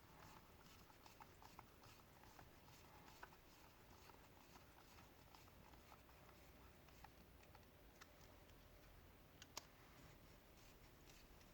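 Faint small clicks and taps of a Wahl Magic clipper's plastic housing and screws being handled and fitted, with a couple of sharper clicks about nine and a half seconds in.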